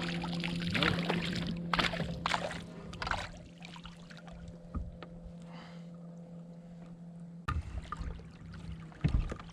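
Water sloshing against a fishing kayak's hull, with clicks and knocks of tackle being handled, over a steady low hum. The sound changes abruptly about seven and a half seconds in.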